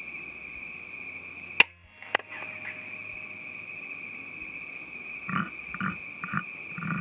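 Crickets chirping steadily at night. About one and a half seconds in comes one sharp, loud crack, followed half a second later by a smaller click. A few short noisy bursts come near the end.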